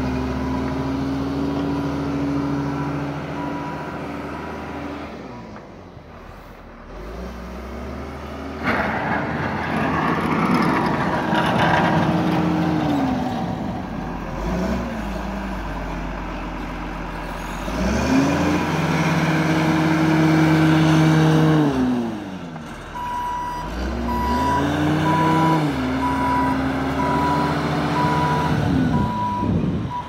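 John Deere TC62H wheel loader with a front snow plow blade working: its engine revs up and drops back several times, with a rough scraping noise from about nine seconds in. Its reversing alarm beeps steadily at the start and again for the last several seconds.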